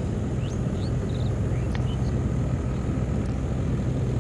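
A steady low engine drone, with a few short, high bird chirps over it in the first two seconds.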